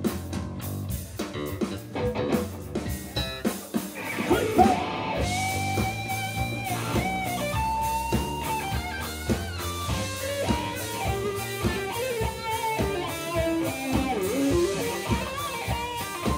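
Live rock band playing electric guitars, bass and drums. From about four seconds in, a melody line of held, bending notes rides over the band.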